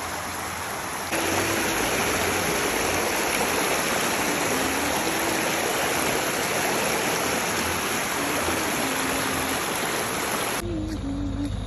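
Shallow stream water rushing and splashing over a rock slab at a small waterfall, a steady, loud hiss. Near the end it cuts off, leaving a low rumble.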